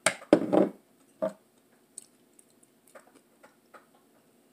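Loud rustling clatter at the start and a shorter one about a second in, then scattered faint clicks and taps as a hot sauce bottle is handled and shaken over fried catfish.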